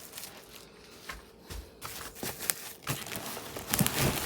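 Packaging rustling and crinkling as chair parts are lifted out of their box, with scattered light clicks and knocks; the loudest handling comes just before the end.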